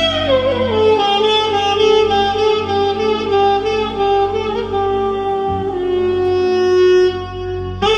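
Band music led by a wind instrument: the lead slides down in pitch about a second in, then holds long notes over a steady low beat.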